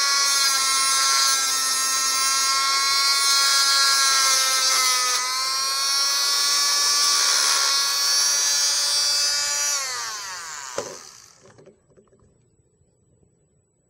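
Dremel rotary tool with a cut-off wheel spinning at high speed and cutting into a small chip package held in a vise: a steady high-pitched whine whose pitch sags briefly about five seconds in. About ten seconds in it winds down with falling pitch as it is switched off, with a single click, and stops.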